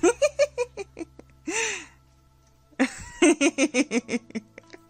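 A person laughing in two bouts of quick, rapid ha-ha pulses, one at the start and one from about three seconds in, with a single drawn-out voiced sound between them.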